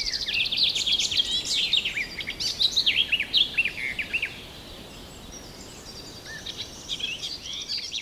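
Small songbirds singing and chirping: a quick run of notes at first, then many short sweeping chirps, thinning out about halfway through and picking up again near the end, over a faint outdoor hiss.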